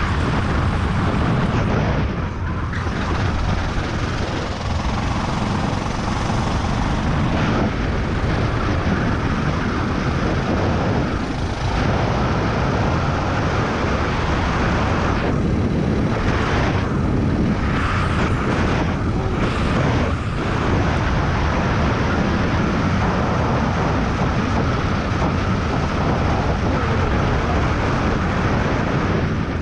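Racing kart engine running hard, heard from a camera mounted on the kart. The sound is loud and continuous, and it drops out briefly a few times, around the corners.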